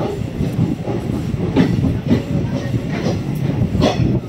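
Passenger train coach rolling out along the platform, heard from inside the coach: a steady rumble of wheels on rails broken by several clacks over rail joints.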